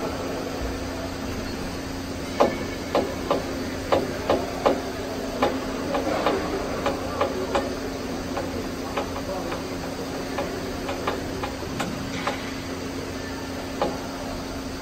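Scattered sharp clacks of hockey sticks and pucks in an ice rink. They come thickest between about two and eight seconds in and sound over a steady hum.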